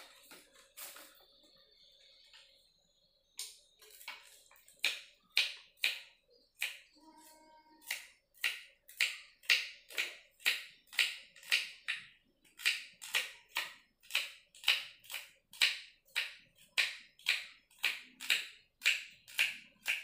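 Knife chopping on a cutting board: sharp strokes that start about three seconds in, uneven at first, then settle into a steady beat of about two a second.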